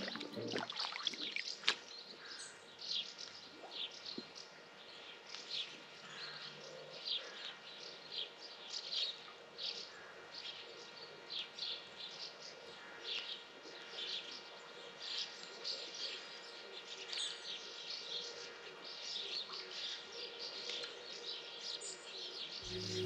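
Wild birds chirping, short calls about once or twice a second, faint, over quiet outdoor background. A single sharp click near the start.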